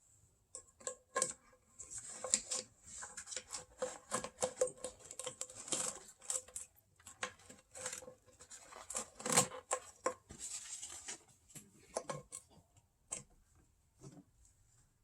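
Rag wiping down a part, an irregular scratchy rubbing mixed with light clicks and taps of plastic engine parts being handled, thinning out near the end.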